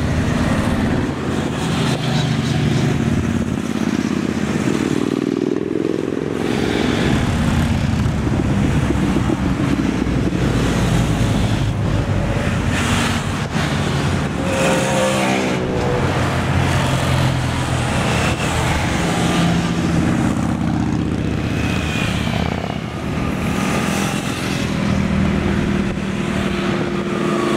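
A procession of motorcycles and trikes riding past one after another with their engines running, the sound rising and falling in pitch as each one goes by, with a few cars among them.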